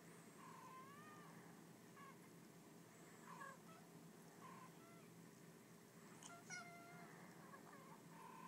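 Cats meowing and chattering through a laptop's small speaker: a string of short, faint calls, some sliding in pitch, with a louder call about six seconds in.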